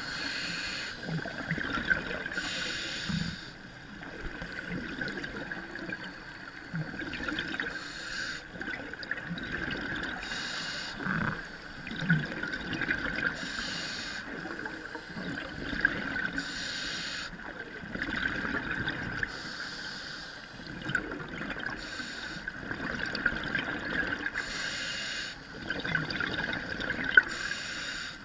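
Scuba diver breathing underwater through a regulator: a bubbly rush of exhaled air about every two to five seconds over a steady hiss, with small gurgles between.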